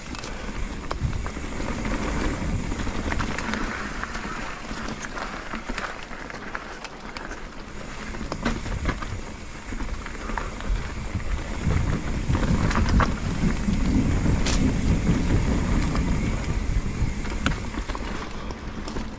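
Mountain bike ridden along a dirt trail: tyres rolling over the ground and wind rumbling on the microphone, with frequent clicks and rattles from the bike. It grows louder about two-thirds of the way through.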